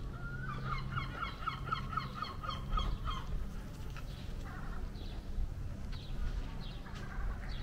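A bird calling a rapid run of about a dozen short, even notes, about four a second, with fainter calls after it, over a low steady hum.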